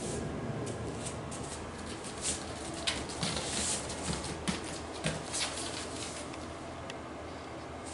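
A corgi puppy's paws and claws scrabbling and pattering on a foam mat as it plays, with a run of quick sharp clicks and rustles in the middle stretch.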